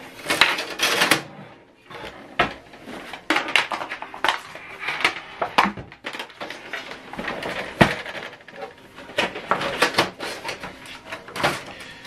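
Handling noise from a Canon PIXMA TS7451 inkjet printer and its USB cable: irregular plastic knocks, clicks and rustles as the printer is turned around on the desk and the cable is moved about.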